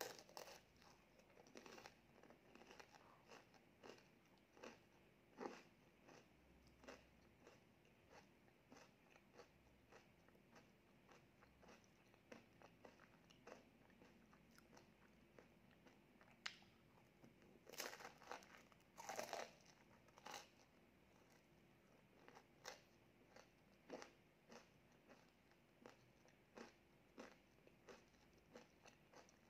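Chewing and crunching of a Kit Kat ice cream cone's wafer cone: a string of small crisp crunches, with a louder cluster of bites a little past halfway.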